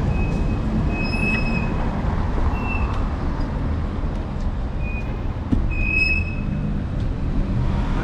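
Electric scooter riding on a city street: wind buffeting the handlebar-mounted action camera's microphone over a steady road rumble. A short high tone sounds about four times, and there is a single knock about five and a half seconds in.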